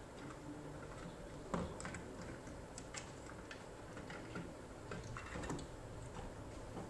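Irregular light clicks and taps of hands handling wires and plastic connectors at a fridge compressor's terminals, with one sharper click about a second and a half in.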